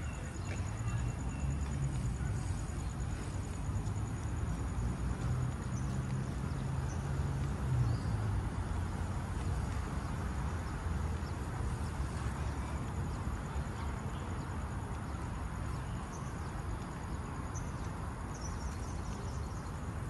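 Steady outdoor city ambience: a low rumble of distant traffic, with a low hum that eases off about eight seconds in and a few faint high chirps.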